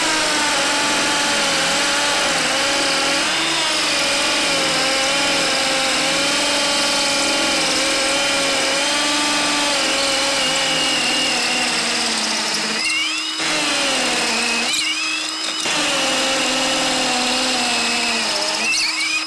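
Ryobi P251 brushless hammer drill in hammer mode at speed two, boring into a concrete block: a steady motor whine under load, its pitch wavering slightly. Twice, about two-thirds of the way through, it briefly eases off, and it stops just before the end.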